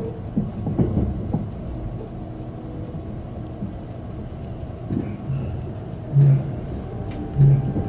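Limited express electric train running, heard from inside the car: a steady low rumble of wheels on rails, with a few clacks over rail joints in the first second and a half. Near the end come two short low hums.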